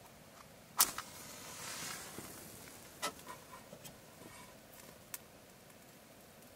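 A few sharp clicks and light knocks of small objects being handled, the loudest just under a second in, with a brief soft hiss around two seconds in.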